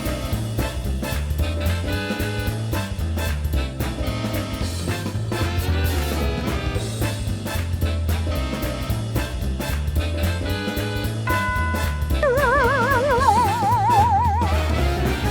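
Upbeat swing-style background music with a steady drum and bass beat. About twelve seconds in, a wavering, warbling tone comes in over the music.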